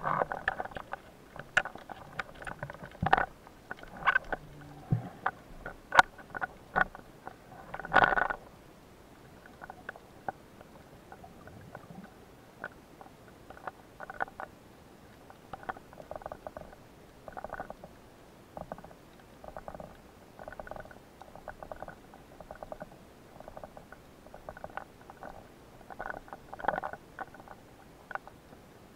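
Irregular clicks and knocks heard underwater, louder and closer together in the first eight seconds, then fainter and sparser.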